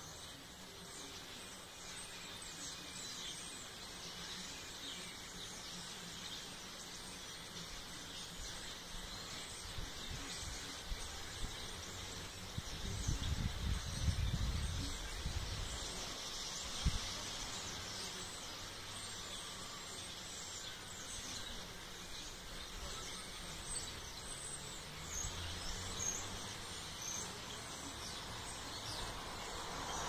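A large flock of small birds calling together, a dense, unbroken chatter of many overlapping high chirps. A low rumble swells and fades about halfway through, with a single sharp click just after it.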